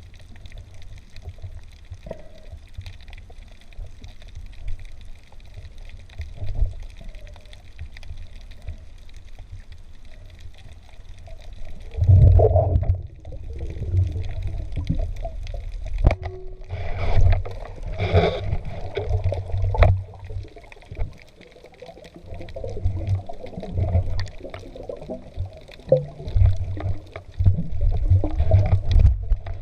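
Water movement and bubbling picked up by an underwater camera, with an uneven low rumble and thumps that grow louder about twelve seconds in, and a louder burst of bubbling about eighteen seconds in.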